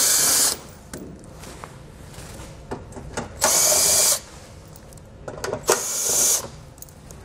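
Milwaukee M18 cordless driver spinning a 10 mm socket, backing out bolts along the underside of the front fascia in three short runs with a steady high whine, with small clicks of socket and bolt handling between them.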